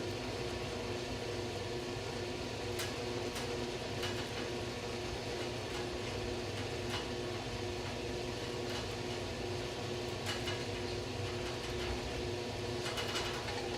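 A steady machine hum with a few steady tones in it, with several brief light clicks and taps scattered through.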